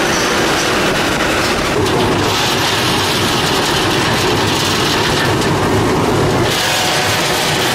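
Continuous almond roasting machine running: a steady mechanical rattle and hum, with roasted nuts spilling from its discharge end into a collection bin.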